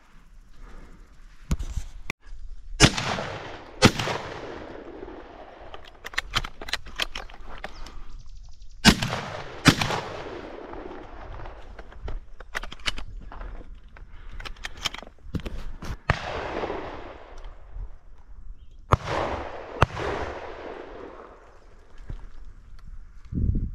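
Shotgun shots fired at ducks in quick pairs, about a second apart, three pairs in all, each shot trailing off in a long rolling echo. Fainter, sharper cracks come in between.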